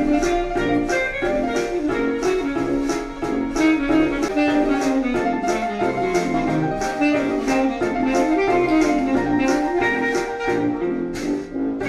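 Background music: an instrumental jazzy tune with a steady beat.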